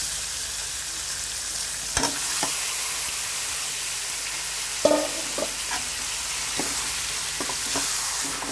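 Marinated beef pieces sizzling steadily in hot oil in a metal pan, just added on top of onions and green chilies. A few sharp knocks of a metal spatula against the pan come about two and five seconds in.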